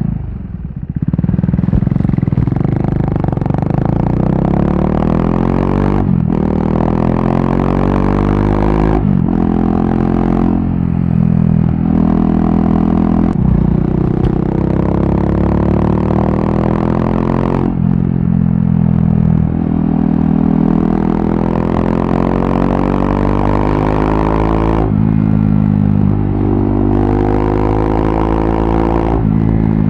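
KTM RC 390 single-cylinder engine running through a barrel exhaust with the dB killer removed, while riding: the exhaust note climbs in pitch under acceleration, drops back and climbs again, over and over.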